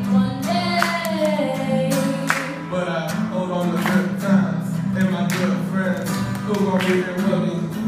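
Acoustic guitar strummed in a steady rhythm under a young woman's amplified singing voice; about three seconds in her voice drops out and the guitar carries on alone.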